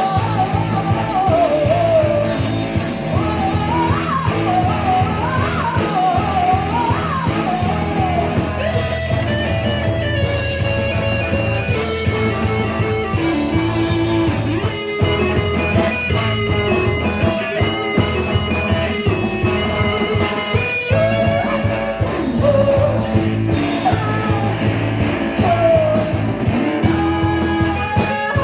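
Live rock band playing a song: guitars, bass and drums, with a wavering lead melody over the top near the start and again about three-quarters of the way through.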